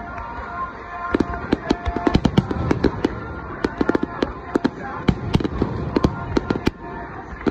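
Aerial firework shells bursting in a rapid barrage, sharp bangs several a second that come thicker from about a second in.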